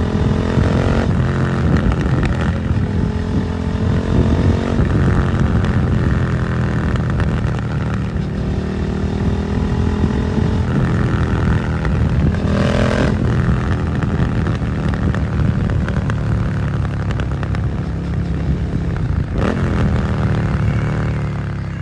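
Suzuki SV650 V-twin through an aftermarket Dominator GP exhaust, pulling away and accelerating, its revs climbing and dropping back several times as it shifts up through the gears. Near the end the throttle closes and the engine note falls away.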